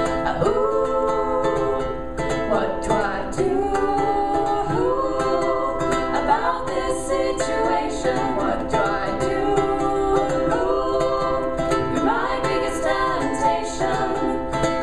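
A love song sung over a strummed ukulele accompaniment, the voice carrying a melody that moves from note to note.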